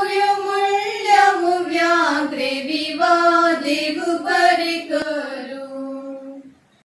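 Women's voices singing a Konkani song in unison without accompaniment, in long, slowly gliding held notes. The singing fades out near the end.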